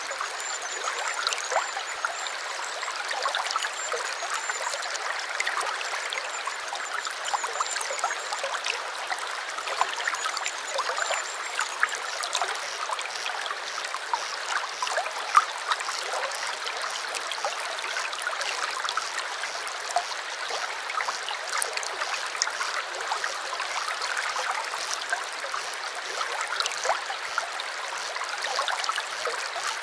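Small stream trickling and babbling in a steady flow, full of tiny splashes. A faint, thin, high wavering note sounds over the water during the first eight seconds and again briefly around ten seconds in.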